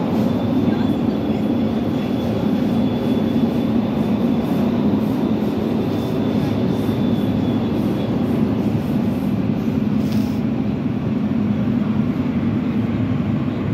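Class 345 Elizabeth line train running at speed through a tunnel, heard from inside the carriage: a steady low rumble, with a faint high-pitched whine that fades out about eight seconds in.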